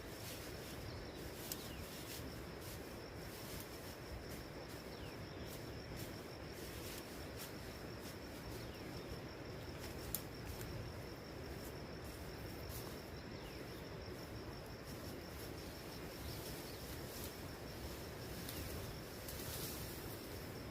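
Insects chirring in the forest: a steady, rapidly pulsing high trill over a constant background hiss, with scattered light ticks and one sharper click about ten seconds in.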